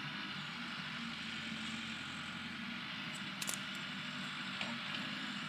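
Steady background hum, with a couple of faint clicks, one about three and a half seconds in and one near the end.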